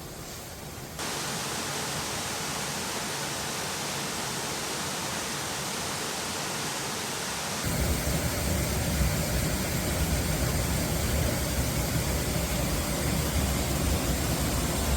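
Steady rushing of a waterfall, a constant hiss that jumps louder about one second in and again about seven and a half seconds in, the second part carrying a heavier low rumble.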